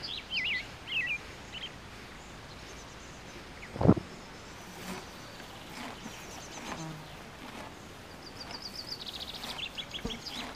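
Grassland ambience. Songbird calls warble in the first second or so, a single short low sound stands out about four seconds in, and rapid high insect-like chirping rises near the end.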